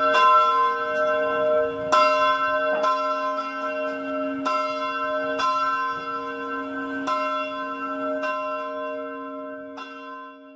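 A single church bell ringing, struck about eight times at uneven intervals, each stroke's tone ringing on into the next.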